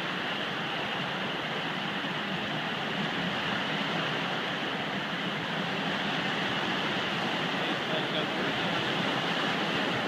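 Steady rush of floodwater flowing across a river crossing, mixed with the wash of a road train's trailer wheels churning through it as the trailers roll past.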